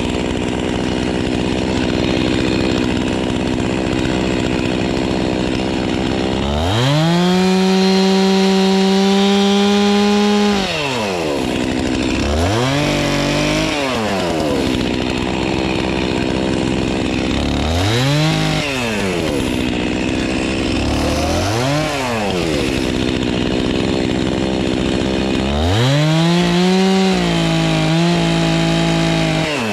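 Stihl MS 362 R two-stroke chainsaw idling, then run up to full throttle and held for about four seconds, cutting into the limbs and logs of a felled tree. It is blipped in several short revs that rise and fall, then held at full throttle again for a cut near the end.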